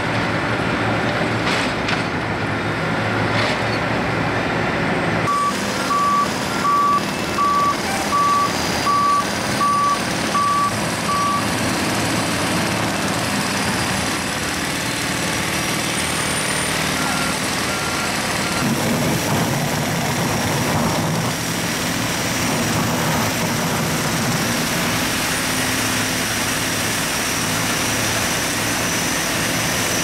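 Heavy construction machinery, including a Case skid steer loader and a street sweeper truck, running steadily. A backup alarm beeps about eight times at an even pace about five seconds in, with a few fainter beeps later.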